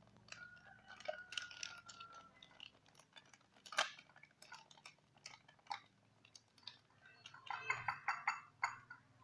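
Light clinks and taps of utensils against a bowl while dish-soap-and-flour slime is being mixed. There is a sharper tap a little under four seconds in and a quick run of taps near the end.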